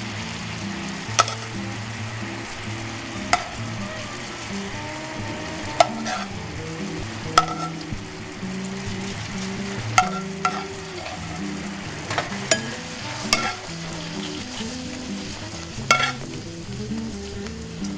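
A metal spoon clinking against a sauté pan and glass snifters as bananas foster sauce is spooned out, about ten sharp clinks one to two seconds apart over a steady hiss.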